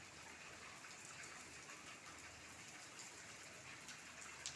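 Heavy rain falling, a faint, steady hiss with a few louder drops ticking.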